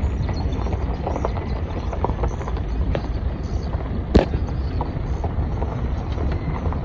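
Car driving slowly along a rough road, heard from inside: a steady low rumble of road and engine noise with scattered small clicks and one sharp knock about four seconds in.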